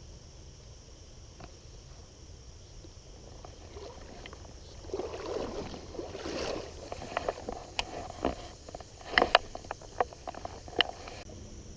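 River water sloshing and splashing around someone wading, starting about five seconds in, followed by a run of sharp clicks and knocks.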